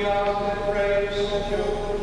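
Liturgical chant of the Latin Mass: text sung on long held notes, with the pitch stepping to a new note about two-thirds of a second in.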